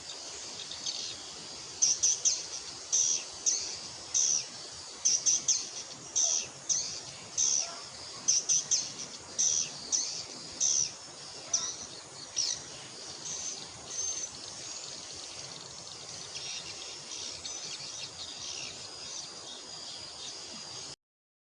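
A flock of swiftlets twittering: a steady high chatter with many short, sharp chirps over the first two thirds, thinning to the chatter alone, which cuts off suddenly near the end.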